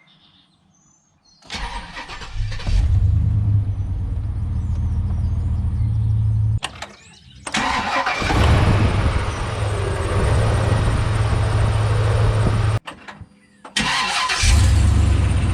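Chevrolet Suburban engine starting about a second and a half in, then running at idle. The sound cuts off abruptly twice and resumes.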